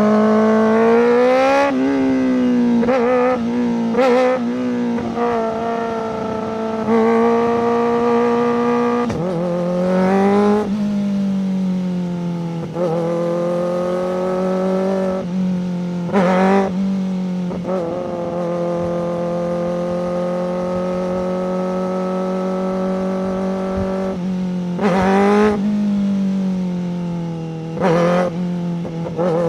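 Kawasaki ZX-4RR's 399 cc inline-four engine through a Coffman's slip-on exhaust, running under way at fairly steady revs. About five times the throttle is opened briefly, each time with a quick rise and fall in pitch.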